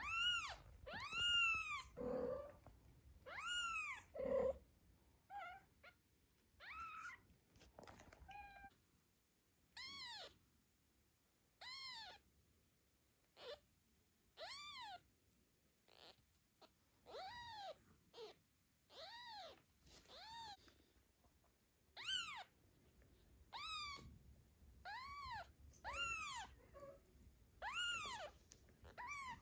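Newborn kitten mewing over and over: thin, high cries, each rising and then falling in pitch, about one every second or two. There are two lower, shorter calls a few seconds in.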